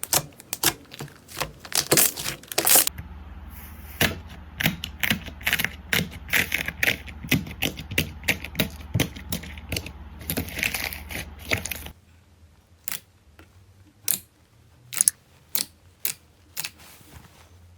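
Slime being handled, giving many crisp popping and crackling clicks. A low background hum stops about twelve seconds in, and after that the clicks come fewer and further apart.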